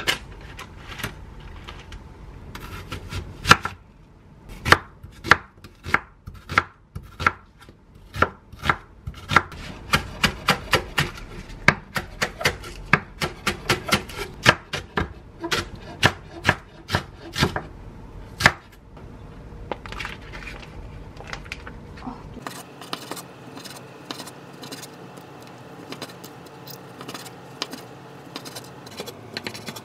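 Kitchen knife chopping green onion on a wooden cutting board: sharp knocks of the blade on the board in quick irregular runs. About two-thirds of the way through the sound changes to softer, closer-set strokes as a knife cuts through raw chicken breast on the board.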